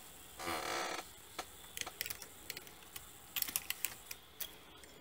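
Light plastic clicks and taps on a knitting machine's needle bed as needles and a transfer tool are handled to make decreases. There is a brief scrape about half a second in, and a quick run of clicks a little past the middle.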